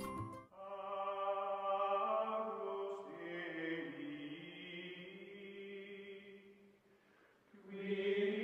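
Background music of choir-like chanting: long held sung notes that fade low about seven seconds in, then swell back near the end.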